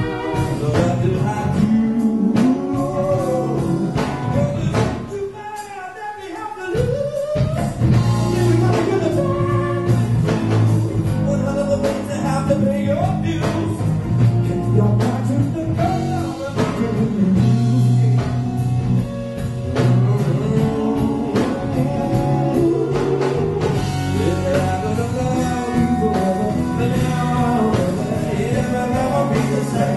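Live song: a male lead vocal over acoustic guitar and electric bass. The band thins out briefly about five to seven seconds in, then picks up again.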